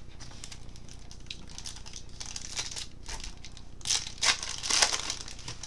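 Baseball card pack wrapper crinkling and tearing as it is opened, with louder rustles about four to five seconds in.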